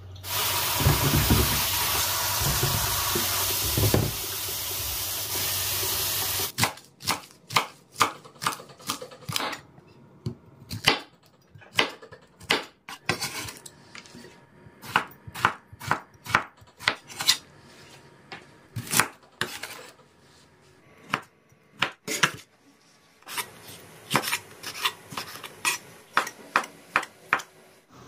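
A kitchen tap runs steadily for about six seconds, then stops. A knife then chops vegetables on a wooden cutting board in quick irregular runs of strokes with short pauses.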